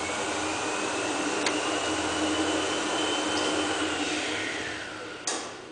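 1980s Dover hydraulic elevator's pump unit running with a steady hum and a whine that climbs slowly in pitch. About four seconds in, the whine falls away and the running fades out, and a sharp click comes near the end.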